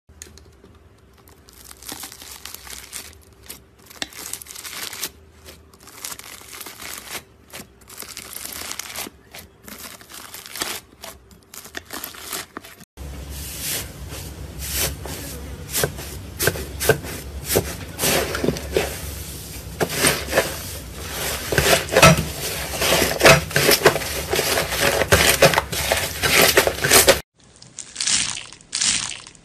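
Slime being pressed and kneaded by hand, giving a dense crackle of small pops and clicks. First a purple slime packed with foam beads is pressed. About halfway through the sound switches to louder, denser crackling as a blue-purple slime is kneaded with both hands. Near the end it changes again as a hand presses into foam beads on clear red slime.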